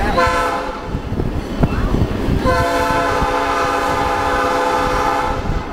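Locomotive horn sounding a short blast and then a long blast of about three seconds, the closing part of the signal for a road grade crossing, over the low rumble of the train rolling on the rails.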